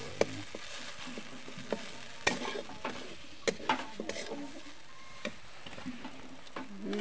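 Metal spatula stirring and scraping spiced onion masala as it fries in oil in a metal kadhai, over a steady sizzle. Now and then the spatula gives a sharp clink against the pan.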